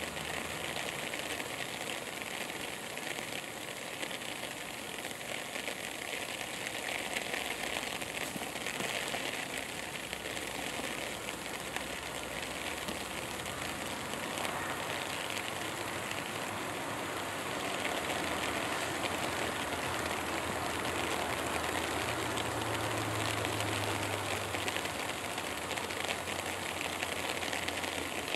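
Steady rain-like hiss of outdoor background noise, with a faint low hum that swells briefly near the end.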